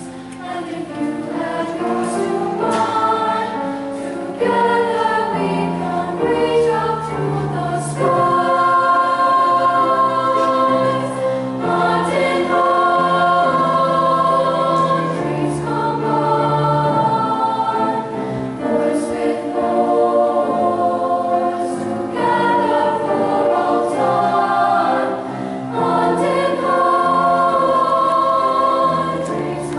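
School choir singing, holding long notes with brief dips in volume between phrases.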